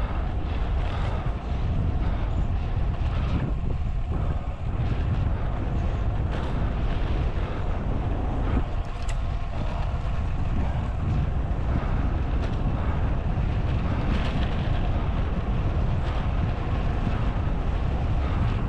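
Wind rushing over the microphone of a camera on a bicycle moving at speed, a steady loud low rumble with a hiss above it.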